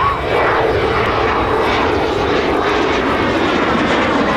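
Kawasaki T-4 jet trainer flying past, its twin turbofan engines making a loud, steady jet rush.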